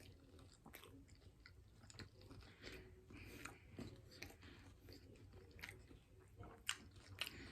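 A person chewing and biting food close to the microphone, faint, with irregular small clicks from the mouth and food.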